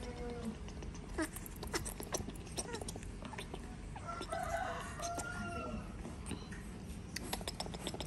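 Baby macaque giving short high squeaks and chirps with soft clicks, and a longer wavering call about four to six seconds in: the fussing sounds of a pampered baby monkey wanting to be held.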